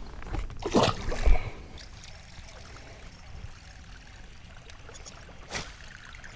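A largemouth bass splashing as it is let go, about a second in. Then a buzzbait blade sputtering faintly across the pond surface on the retrieve, with one sharp click near the end.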